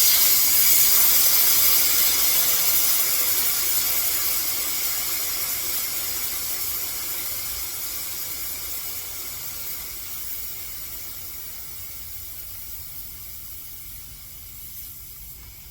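Air hissing out of a bicycle tire's valve as the tire is deflated, starting suddenly and fading steadily as the pressure drops.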